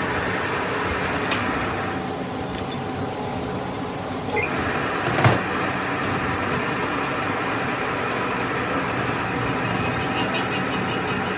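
A workshop machine running steadily with a constant hum, with a single short knock about five seconds in.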